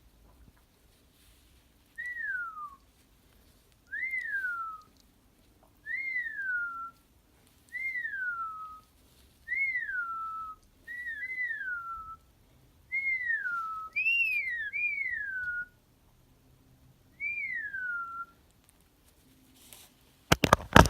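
A clear whistled note, a quick rise then a long downward slide, repeated about ten times at roughly two-second intervals. A loud burst of sound cuts in just before the end.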